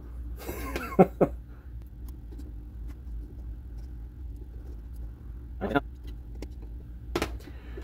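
Small Phillips screws being driven by hand with a screwdriver into a telescope focuser's metal housing: a few light metal clicks and handling taps, over a steady low hum.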